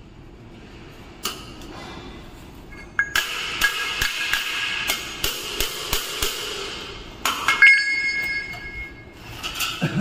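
Perforated galvanized steel cable tray sections clinking, rattling and scraping against each other as they are pushed and fitted together by hand, the sheet metal ringing at a couple of steady pitches. The clinks come thick and fast from about three to seven seconds in, with another flurry near eight seconds.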